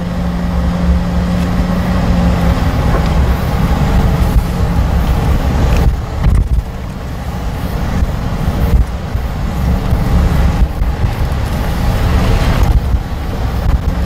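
Vehicle engine running and road rumble while driving, steady and low, easing off briefly about six seconds in.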